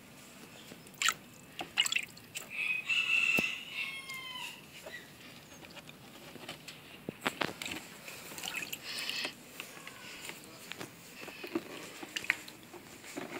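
Small water splashes and scattered sharp clicks and knocks in a shallow plastic tub holding a turtle, with a pitched, gliding call from about two and a half to four and a half seconds in.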